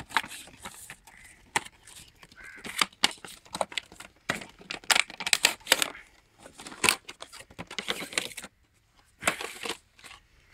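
Cardboard box and clear plastic blister packaging being opened and handled: irregular crackling, rustling and sharp clicks of stiff plastic and paperboard, briefly letting up near the end.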